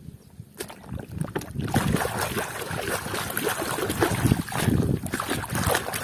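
Water sloshing and splashing around a muddy plastic toy as it is washed by hand, with small plastic knocks and clicks. It starts about half a second in and gets louder after the first couple of seconds.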